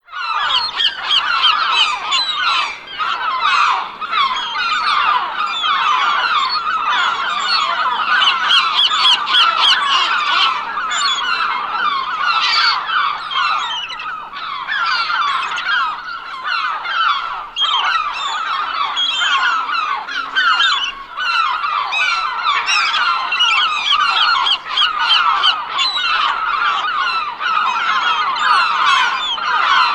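A large flock of gulls calling, many short cries overlapping at once in a dense, unbroken chorus.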